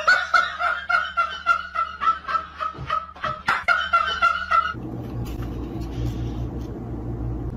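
A dog giving a rapid run of high, warbling yips, about three a second, that stops suddenly almost five seconds in. After that comes a steady low pulsing rumble: a kitten purring as it is stroked.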